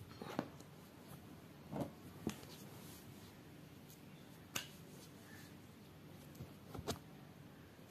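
A handful of scattered sharp clicks and soft knocks, about five in all, the sharpest a little past the middle, over faint room noise.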